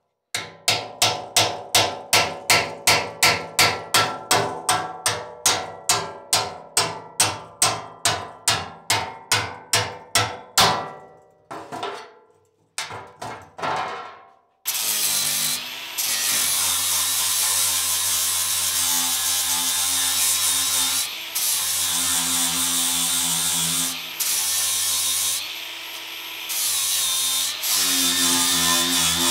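A hammer drives a chisel against a caster's steel mounting plate on a metal cart top. It strikes about three times a second for some ten seconds, then gives a few slower blows. About halfway through, an angle grinder starts grinding rusty steel and runs steadily with a few brief dips.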